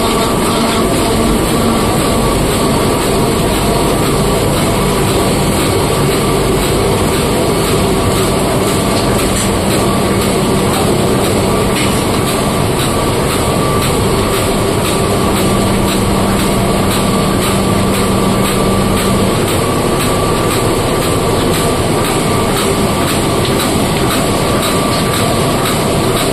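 Komori Lithrone L428 four-colour sheet-fed offset printing press running in production, feeding and printing sheets: a loud, steady, dense mechanical clatter with a continuous whine.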